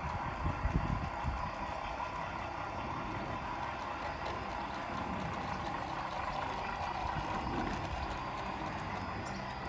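A 16mm-scale garden railway locomotive running along the track with its train of small open carriages, a steady mechanical running sound, with a few low thumps in the first second or so.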